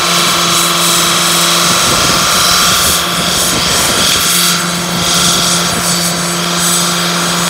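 Chrysler PT Cruiser's engine held at steady high revs during a burnout, its front tyres spinning on dirt. The engine note holds one pitch, fades out for about two seconds partway through, then comes back at the same pitch.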